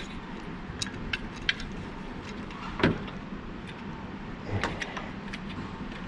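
Light plastic and metal clicks as a starting relay is pushed onto a refrigeration compressor's terminal pins by hand, with one louder knock about three seconds in and a few more clicks near the five-second mark.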